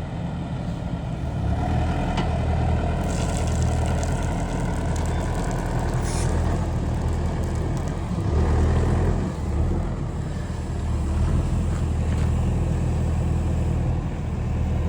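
Yanmar ViO80-U mini excavator's diesel engine running steadily, swelling louder for a moment around the middle.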